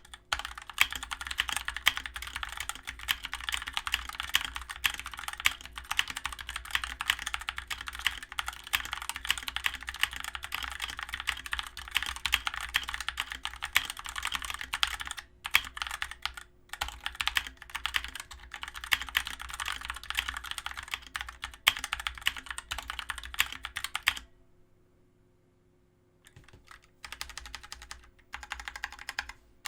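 Rapid, continuous typing on a Dierya DK63 60% mechanical keyboard with Outemu switches, a dense run of keystroke clicks. Near the end the typing stops for about two seconds, then resumes more sparsely.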